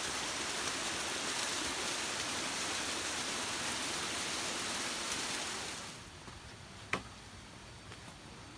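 Steady rush of flowing water, a jungle stream or small cascade, that drops off suddenly about six seconds in to a quieter hiss with a sharp click or two.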